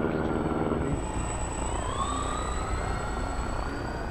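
Propeller motors of a large radio-controlled Hughes H-4 Spruce Goose model flying boat running with a steady hum as it flies low over the water, throttled back about a second in. After that a thin whine rises slowly in pitch as the model comes down onto the water.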